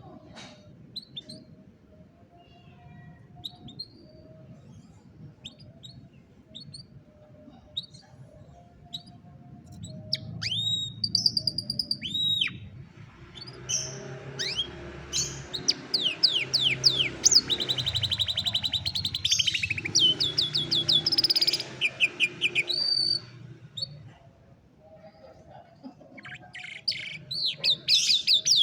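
Domestic canary singing: scattered short chirps at first, then, about ten seconds in, a full song of rapid trills and rolling whistled phrases lasting around twelve seconds, pausing, and starting up again near the end.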